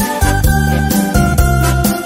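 Yamaha Tyros arranger keyboard playing an 80s cha-cha medley: a held melody stepping down note by note over a repeating bass line and a steady dance beat.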